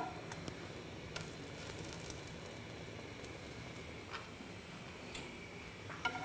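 A slice of egg-soaked bread frying in butter in a pan: a soft, steady sizzle with scattered small crackles. A spatula clinks against the pan as the slice is turned at the start, and again about six seconds in.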